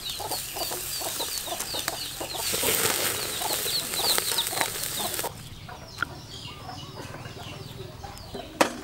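Beef sizzling on a wire grill over charcoal, a steady hiss that grows louder and then cuts off abruptly about five seconds in. A quieter background follows, with one sharp knock near the end.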